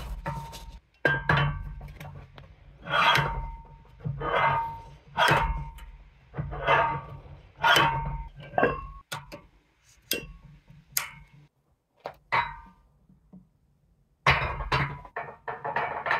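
Cast-iron weight plate and plastic sleeve being fitted onto the end of a steel barbell, knocking and clanking against the bar in a series of separate hits, some with a short metallic ring.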